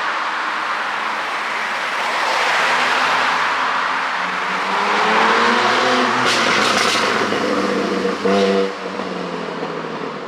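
Porsche 718 Boxster 4.0 GTS flat-six with a tuned exhaust, running over road and wind noise. Its note climbs in pitch as it accelerates, then gives a run of sharp crackles and pops, the popping that the ECU tune adds, followed by a short loud blast of exhaust about eight seconds in.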